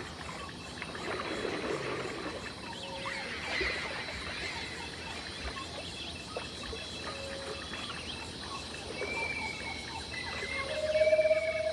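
Nature ambience of insects chirping, with scattered short calls. Near the end a long steady tone comes in and the sound grows louder.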